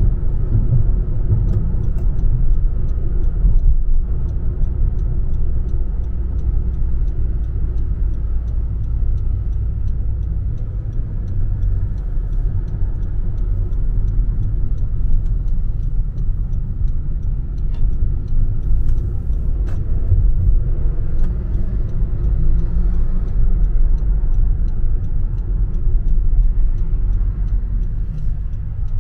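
Car interior road and engine noise while driving, a steady low rumble, with a fast, regular light ticking heard over it.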